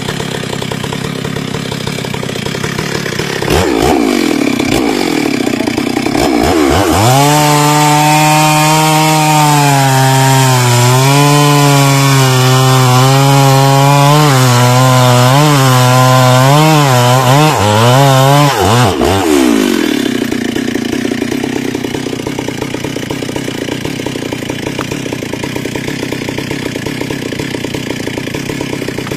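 Stihl MS 382 two-stroke chainsaw idling, then revved up about four seconds in and held at high revs for about twelve seconds, its pitch wavering and dipping repeatedly as it works through wood, before dropping back to idle about twenty seconds in.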